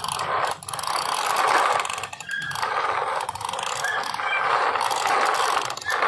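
Plastic toy dump trucks rolling and being dragged over muddy ground, their wheels and gears giving a continuous clicking rattle.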